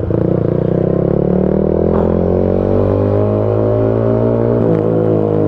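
Yamaha XSR155's single-cylinder engine pulling under way, its note climbing slowly and steadily. Near the end the note breaks briefly, then eases down again.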